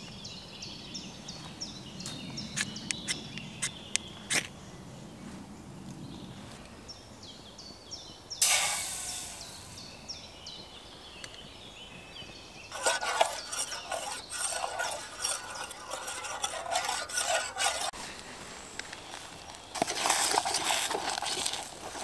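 Birds chirping for the first few seconds, then a sudden hiss about eight seconds in. Later, a spoon scrapes and clinks against a steel camping pot as scrambled eggs are cooked and stirred.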